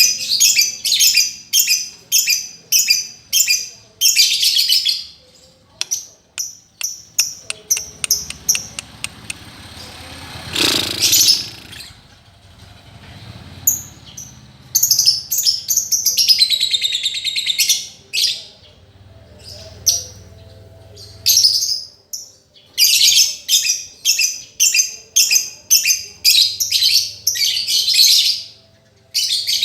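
Lovebird singing: fast runs of short, high-pitched chirps repeated several times a second, broken by a longer warbling phrase about halfway through. It is a master song used to get a silent lovebird singing again.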